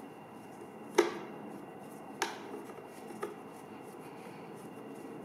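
Nut driver clicking on a bolt and the black plastic housing of a Briggs & Stratton mower engine as the bolt is unscrewed: three sharp clicks about a second apart, the first the loudest, over a faint steady hum.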